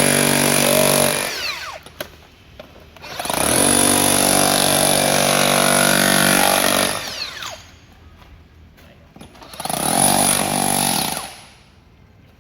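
Makita HR005G 40V cordless rotary hammer running in three bursts, the second the longest, with the rapid hammering of its impact mechanism. It winds down after each trigger release.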